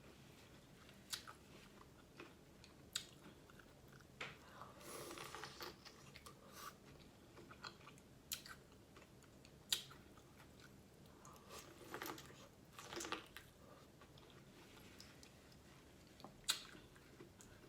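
Faint close-up eating sounds from seafood boil food: scattered sharp mouth clicks and bites, with longer stretches of chewing about five seconds in and again around twelve seconds.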